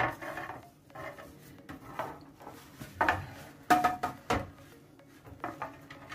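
Granulated sugar shaken from a porcelain cup onto a metal oven tray, the grains pattering faintly, with several sharp knocks and clinks of the cup and tray, the loudest two a little past the middle.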